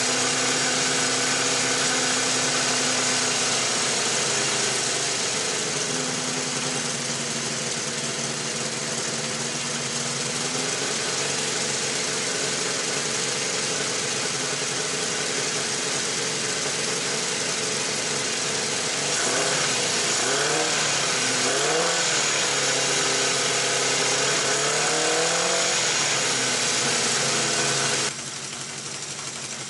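Honda CB350F's air-cooled inline-four engine running, its note wandering slowly, then a few quick throttle blips rising and falling about two-thirds of the way through. The owner suspects its odd noise comes from an exhaust leak. The level drops suddenly near the end.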